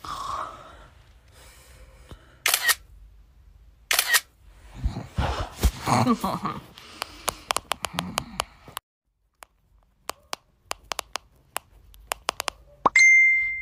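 Phone camera shutter clicks: two single shots about a second and a half apart, then a long run of quick clicks broken by a short silent gap.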